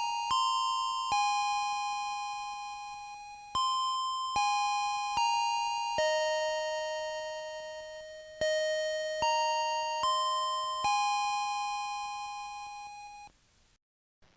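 School bell chime playing a melody of struck, ringing notes in groups of four, about one note every 0.8 seconds, each note fading as the next sounds. The tune stops about thirteen seconds in.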